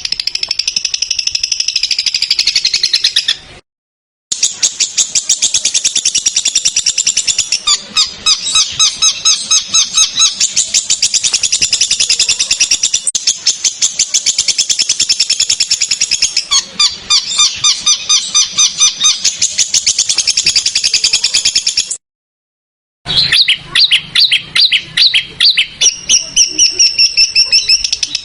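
Songbird calls from a bird-tutor recording: fast runs of sharp, rough repeated chirps, high-pitched, in edited segments broken twice by a second of silence.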